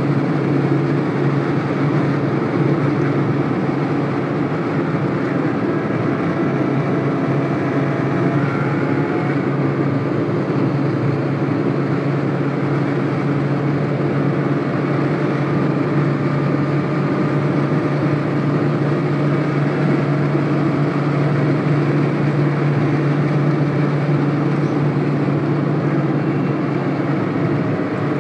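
Steady in-cabin noise of a car cruising at highway speed, about 135–139 km/h: a constant low engine drone over tyre and road rumble, heard from inside the car.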